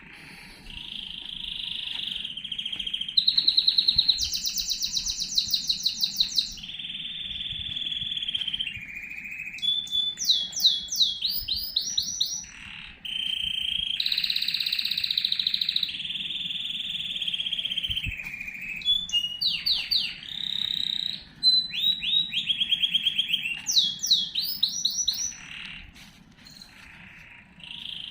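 A songbird singing a long, varied song: held buzzy notes, rapid trills and quick repeated sweeps, phrase after phrase with short pauses between.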